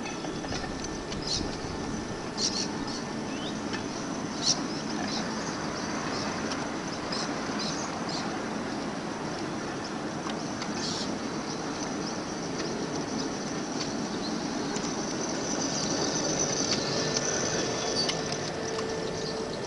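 Battery-powered 5-inch gauge model tramcar rolling along its track: a steady rumble of small wheels on rail, with scattered high squeaks and clicks. A steady hum and brighter squealing come in about three quarters through.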